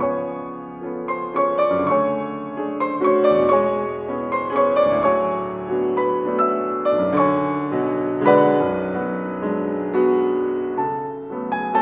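Classical piano music: a flowing melody of struck notes over a lower accompaniment.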